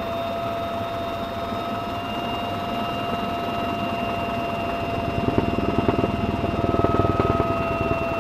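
Military helicopter running: a steady high turbine whine throughout, joined by a rapid, dense pulsing from about five seconds in until near the end.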